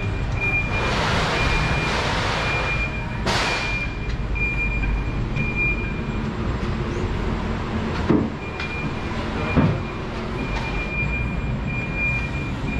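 Steady low engine rumble under a warning beeper sounding short, high beeps about twice a second. A burst of hiss comes about a second in, then a sharp knock, and two thumps follow later.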